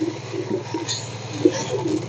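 Wooden spatula stirring chicken and spices in a clay pot, with a few light scrapes, over a steady low hum. A bird coos softly and repeatedly underneath.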